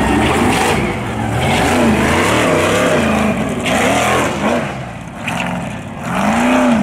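Off-road race truck's engine revving hard, its pitch climbing and dropping again and again as the throttle is worked on the dirt track. It eases briefly about five seconds in, then gives a quick rise and fall near the end.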